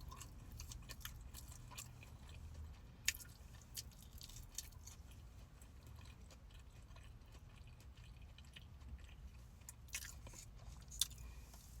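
A person chewing deep-fried crab cake close to the microphone, faint, with a few sharp mouth clicks.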